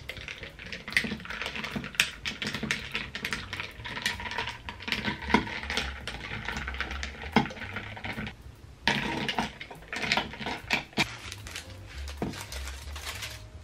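A metal spoon stirring ice cubes in a tall glass of iced coffee, a rapid run of clinks and rattles with a brief pause about eight seconds in. Near the end, the paper wrapping of a baguette crinkles as it is handled.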